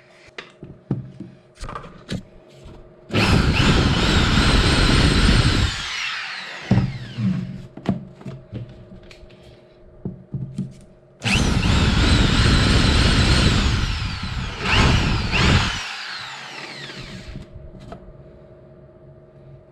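Power drill run in two bursts, about three seconds in and again about eleven seconds in, its motor whine falling away as it winds down after each. Scattered knocks and handling noises of wood come between the bursts.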